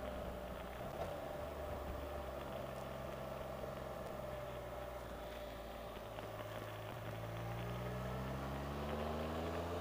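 Can-Am Spyder RT's three-cylinder engine running under way, its note dipping slightly and then rising steadily from about six seconds in as the machine accelerates.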